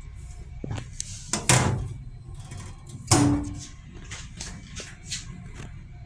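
Restroom door in an M7 railcar handled: two loud bangs about a second and a half apart, then a quick run of lighter clicks and knocks. Under it, the steady low rumble of the railcar running.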